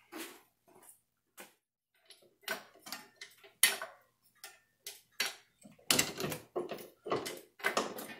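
Irregular light metal clicks and knocks from hand work on the transmission mount, as the transmission is lifted into line with the mount and its bolt is worked in; the clicks come closer together in the second half.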